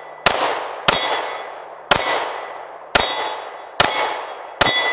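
Springfield Armory Hellcat 9mm subcompact pistol firing six shots, about one a second. After each shot a struck steel plate target rings and fades.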